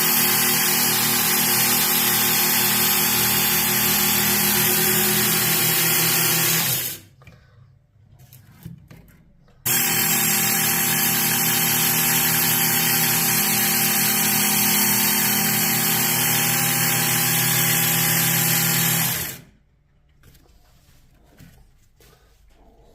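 Work Sharp MK2 electric belt knife sharpener running: a steady motor hum with the hiss of the abrasive belt. It runs for about seven seconds, stops, starts again about three seconds later for about ten seconds, then is switched off, leaving only faint handling sounds.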